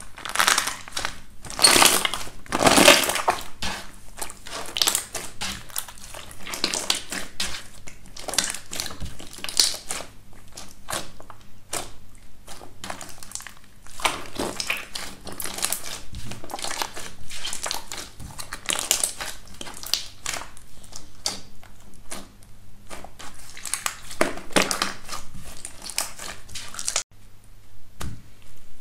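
Clear glitter slime stretched and folded by hand, crackling and popping in dense, uneven bursts. After a short break near the end, a hand presses on a thicker yellow slime whose top layer cracks with a crunchy crackle.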